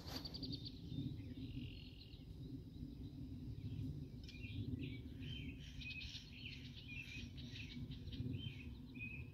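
Songbirds chirping and calling, a scattered trill early on and then a busy run of short repeated chirps from about four seconds in, over a steady low rumble.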